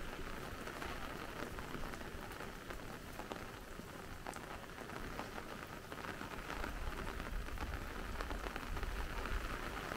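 Steady rain falling, with a dense patter of individual drops close by. A low rumble joins in about six seconds in.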